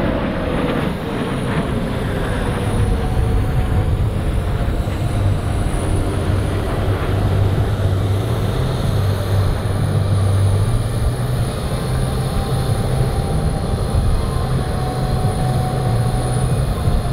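Northrop B-2 Spirit stealth bomber flying past, its four General Electric F118 turbofan engines making a loud, deep, steady jet rumble. A tone drops in pitch in the first second as the bomber passes.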